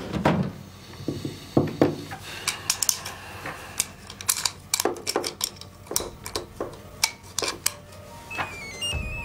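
Irregular sharp metallic clicks and clinks, a few a second, from small metal objects handled on a desk. Near the end a stepping synth melody begins.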